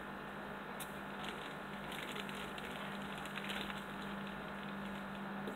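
A clear plastic bag crinkling and scattered small clicks as pieces of chicken are handled over kittens eating, with a steady low hum underneath.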